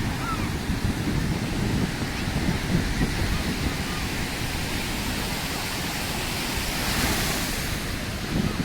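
Sea surf washing on the shore with wind buffeting the microphone; a wave breaks louder about seven seconds in.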